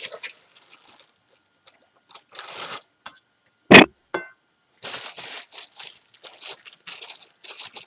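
Rustling and crinkling of tortilla packaging as a tortilla is taken out, in scattered spells that grow busier in the last few seconds. One sharp knock, the loudest sound, comes just under four seconds in.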